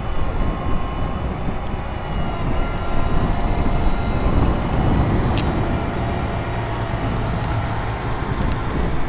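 Heavy farm machinery harvesting maize, running steadily: a loud low rumble with faint steady tones above it.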